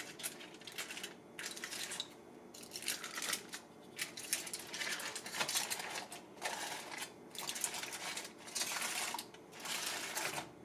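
Aluminium foil crinkling in irregular bursts as it is peeled off a sheet pan and crumpled into a ball.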